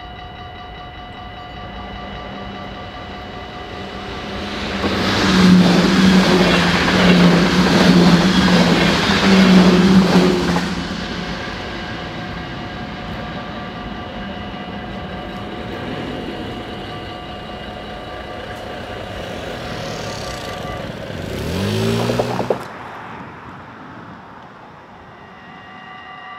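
Level-crossing warning bell ringing steadily while a train passes over the crossing, a loud rushing with a pulsing low hum from about four to eleven seconds in. The bell stops about twenty seconds in, followed by a short rising engine sound that cuts off suddenly.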